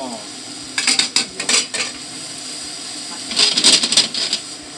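Bacon, onion and mushrooms stirred in a nonstick frying pan: the utensil clicks and scrapes against the pan in two bouts, about a second in and again after about three seconds, over a steady hiss of the food sizzling.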